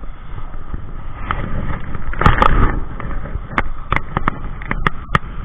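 Steady rushing noise of a river current with wind on the microphone, broken in the second half by a string of sharp clicks and knocks, a cluster of them and then about half a dozen single ones.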